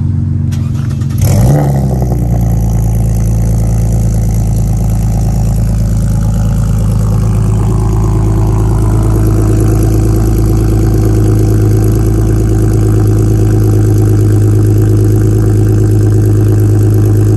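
Lexus IS350's 3.5-litre V6 idling steadily and rowdy-loud through new PPE headers and a custom exhaust with no mufflers, after a short bump in the sound about a second in.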